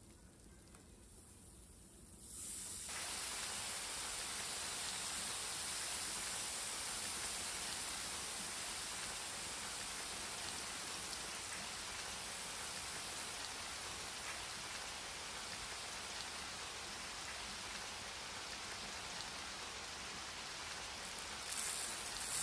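A thin stream poured onto crumpled clear plastic wrap makes a steady, rain-like patter. It starts abruptly a couple of seconds in and swells briefly near the end.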